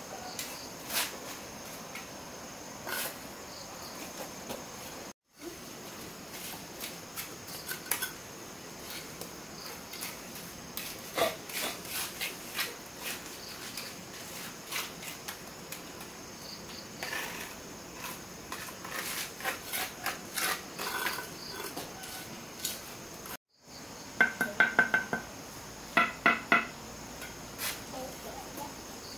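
Hand tools tapping, knocking and scraping on brick and cement, irregularly throughout, with a run of sharp, ringing metallic taps near the end. Insects chirr steadily and high in the background.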